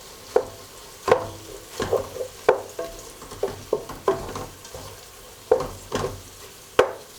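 A utensil stirring chicken and vegetables in a Dutch oven, knocking and scraping against the pot about nine times at an uneven pace, each knock leaving a short ring. The food sizzles faintly underneath over low heat.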